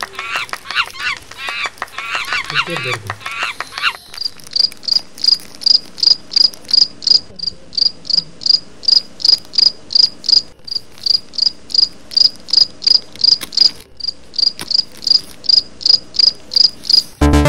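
A cricket chirping in a steady, even rhythm of short high-pitched chirps, about three a second. For the first few seconds a quicker run of chirps comes before the steady rhythm settles in.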